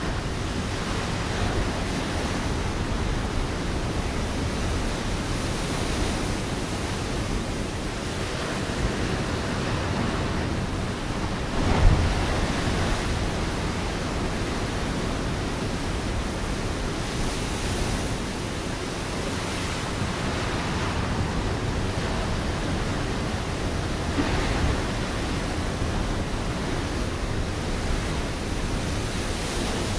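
Ocean waves crashing onto a rocky shore: a continuous wash of surf, with one heavier wave breaking about twelve seconds in.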